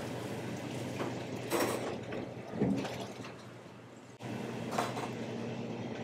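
Steady low machine hum of a bakery work room, with a few brief faint handling noises from hands working at the counter.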